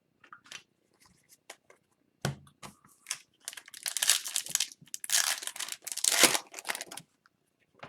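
Hockey card pack wrapper being torn open and crinkled by hand: a few small clicks and a knock, then about three and a half seconds of dense crackling.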